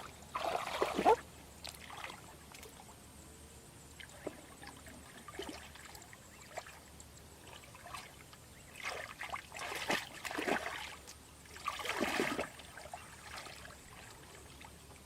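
Water splashing and trickling in several bursts: one at the start, another around nine to ten seconds in, and another around twelve seconds, with quieter trickling between.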